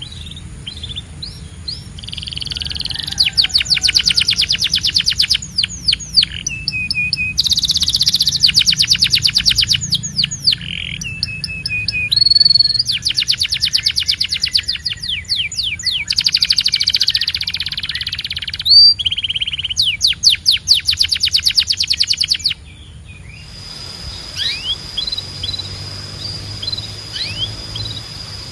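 Domestic canary singing: long, fast trills and rolls broken by brief pauses and short whistled notes, giving way to quieter, scattered chirps about three quarters of the way through.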